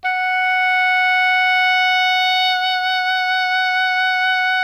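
Oboe holding one long, steady note, played at first without vibrato; about halfway through, vibrato is added and the pitch begins to waver evenly.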